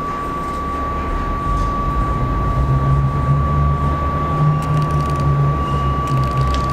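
Subway train rumbling along the tracks, the rumble swelling after about a second and a half, with a few sharp clicks near the end from wheels striking rail joints. A steady high whine runs underneath.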